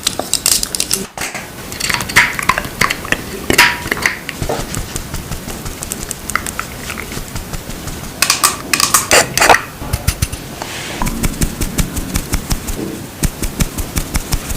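Makeup items being handled close up: irregular clicks, taps and small clattering knocks of their cases and lids, with short rustling bursts and a run of quick clicks near the end.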